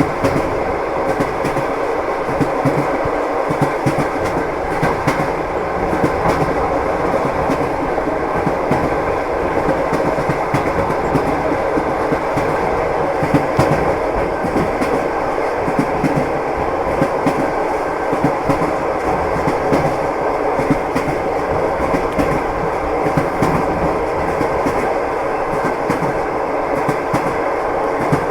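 Train wheels knocking over the rail joints as a train runs at steady speed: a continuous rumble with frequent short, irregular clacks and knocks.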